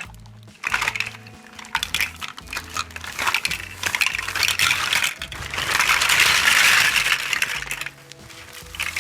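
A pile of hard children's toys poured out of a bag, clattering and rattling against each other in a dense tumble that is busiest a little after the middle.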